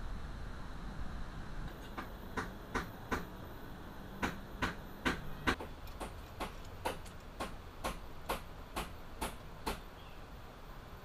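A run of sharp, short knocks, irregular at roughly two a second, over a steady low hiss; the knocks begin about two seconds in and stop about ten seconds in.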